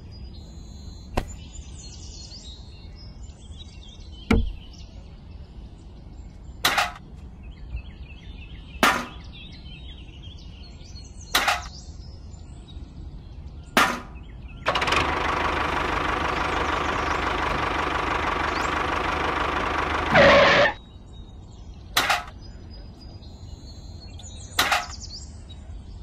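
Sharp knocks at regular intervals of about two and a half seconds. A small motor runs steadily for about five seconds past the middle, stopping just before a louder knock.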